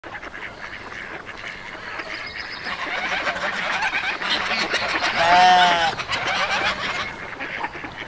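Farm animal ambience: many poultry calling over one another, growing busier over the first few seconds. One loud, drawn-out call stands out about five seconds in.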